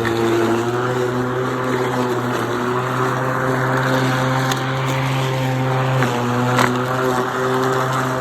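Hyper Tough 40-volt battery-powered lawn mower running steadily, its motor and blade humming as it mulches tall grass. A couple of brief sharp ticks come through the hum.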